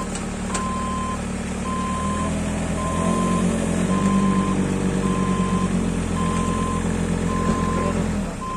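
A vehicle's reversing alarm beeping steadily, one single-pitched beep about every second, over a heavy vehicle's engine running. The engine picks up and grows louder about three seconds in, then falls away near the end while the beeping carries on.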